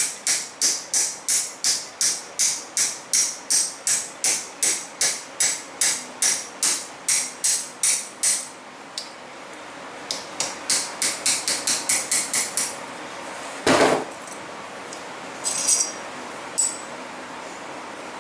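Hammer tapping on steel at an even pace, about three bright metallic taps a second. The taps stop a little under halfway through, then resume more lightly. One louder, duller knock follows, then a couple of short knocks near the end.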